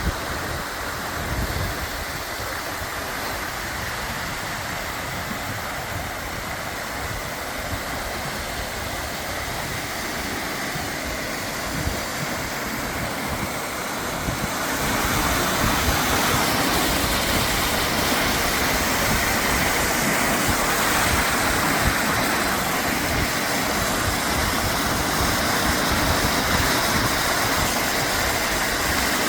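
Mountain valley stream rushing over rocks, a steady water noise that grows louder about halfway through.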